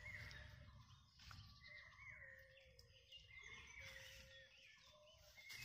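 Near silence: faint outdoor background with a few faint, drawn-out pitched calls and a low steady rumble.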